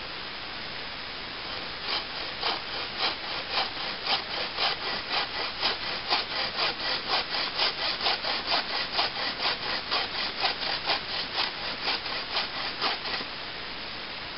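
Takedown buck saw cutting through a dead log with even back-and-forth rasping strokes, about two to three a second. The strokes start about two seconds in and stop about a second before the end.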